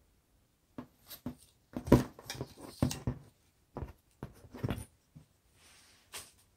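Scissors, loose plastic straws, a marker and a steel ruler being picked up and gathered off a tabletop: a string of short knocks and clatters, loudest about two to three seconds in.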